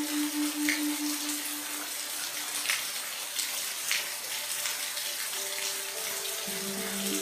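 Steady rain: a dense hiss of falling water with a few sharper drops, over low steady humming tones that shift to different pitches near the end.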